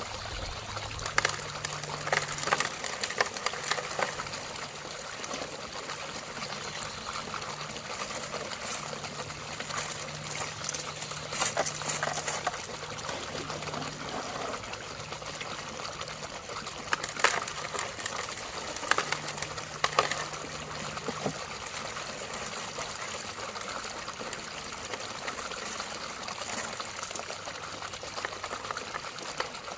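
Running water trickling and splashing, with scattered sharp clicks of stones knocking together and a faint low hum that comes and goes.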